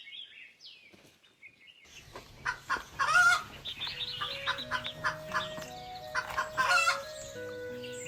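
Chickens clucking and calling, with two loud calls about three and seven seconds in. Soft music with held notes comes in about halfway.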